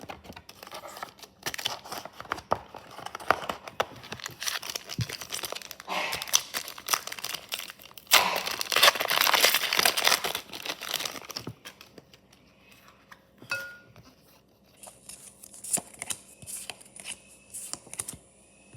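Foil wrapper of a Pokémon card booster pack being torn open and crinkled, a dense crackling rustle that is loudest about eight to ten seconds in. It then drops to faint scattered clicks and rustles of handling.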